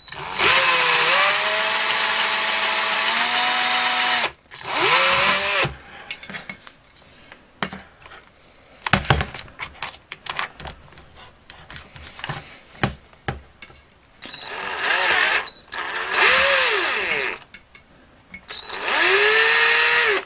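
Black+Decker cordless drill boring a 5 mm hole through the hard red plastic of a vintage toy vehicle. A steady run of about four seconds is followed by three shorter runs that speed up and slow down, with scattered clicks and knocks of handling between them.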